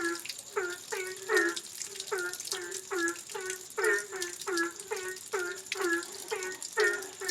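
Frogs croaking in short calls repeated about two or three times a second, several overlapping, over a steady hiss of rain.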